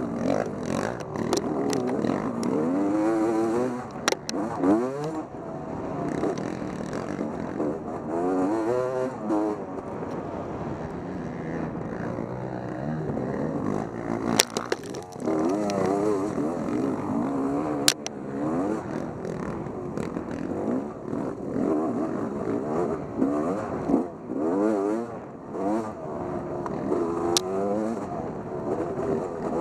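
Motorcycle engine revving up and down over and over as it is ridden, with a few sharp clicks or knocks.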